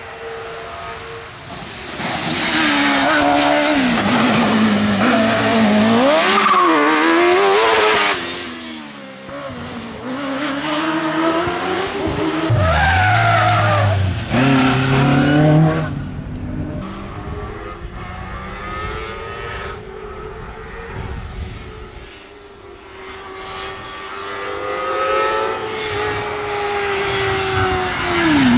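Competition cars driven hard on a hillclimb and sprint course: engines revving high, the pitch climbing and then dropping back at each gear change. Tyres squeal as one car spins its wheels at a launch.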